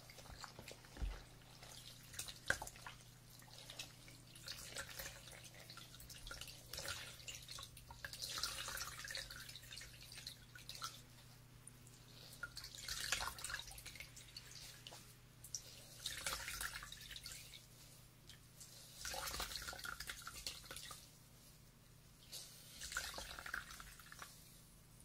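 Ear-licking mouth sounds close to the microphone: soft wet clicks and smacks in bursts every few seconds.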